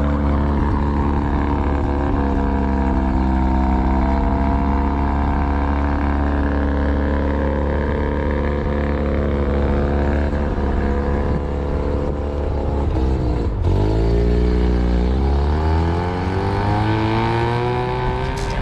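Mazda RX-7 rotary engine running at low revs with a steady, slightly wavering note. About two-thirds of the way through, the pitch drops sharply and then climbs steadily as the engine revs up.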